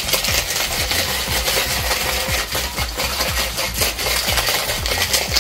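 Ice rattling hard inside a stainless steel cocktail shaker as it is shaken, a fast, steady clatter of ice against metal.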